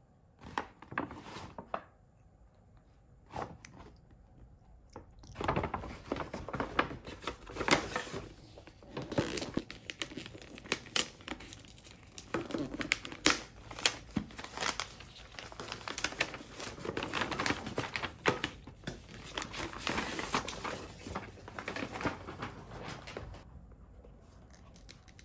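Paper packaging crinkling and tearing as a package is unwrapped by hand: a few single crackles at first, then about five seconds in a long run of irregular rustles and crackles that stops near the end.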